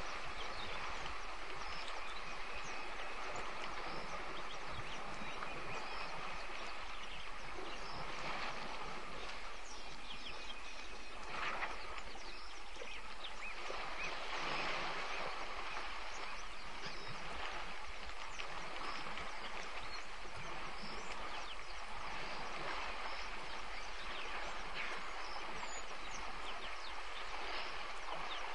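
Steady outdoor bush ambience: an even hiss at a constant level, with faint scattered bird chirps through it.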